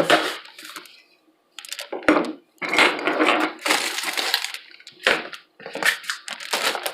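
Spiralizer parts and packaging being handled during unboxing: irregular plastic clattering and rustling in several short bouts.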